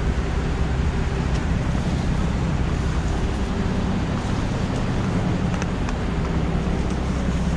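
Steady city street traffic noise: a low rumble of engines under an even hiss.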